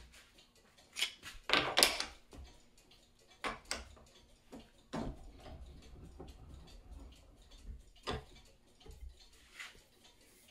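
Scattered clicks and knocks of metal parts being handled on a workbench as aluminium soft jaws are set onto a cast-iron bench vise, the loudest cluster about two seconds in, followed by quieter shuffling as the heavy metal pipe housing is picked up.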